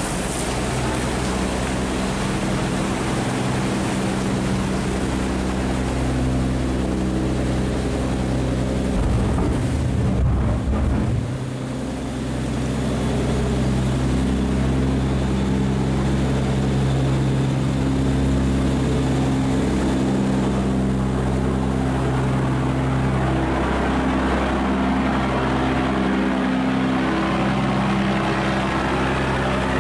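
Diesel engine of a loaded sand barge running steadily at low speed, a deep even drone, over water churning in its propeller wash; the engine note shifts briefly about ten seconds in.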